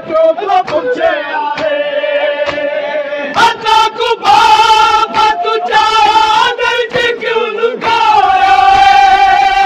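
Loud chanting of a noha, a Shia lament, in long held, wavering notes, with a crowd of mourners doing matam. Sharp slaps of hands on bare chests cut through the chant at irregular moments.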